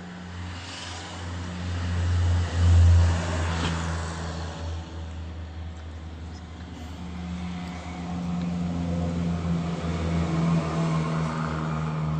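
An engine running steadily with a low hum and a rushing noise over it, swelling loudest about three seconds in.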